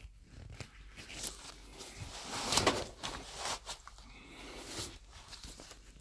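Rustling and scraping with scattered light clicks as a plastic electrical enclosure cover is handled for fitting, loudest about halfway through.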